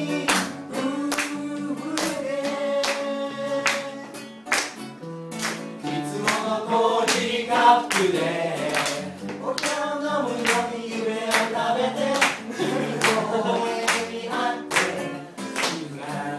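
Live acoustic guitar played with singing into a microphone, with hand claps keeping a steady beat about twice a second.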